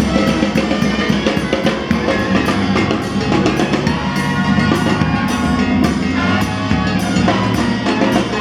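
Brass band music with a steady drum beat, bass drum and snare driving it under the horns.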